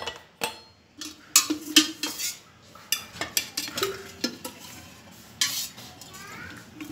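Steel cooking pots and a metal spoon clinking, knocking and scraping against each other as they are handled, a quick irregular run of sharp clinks, some briefly ringing.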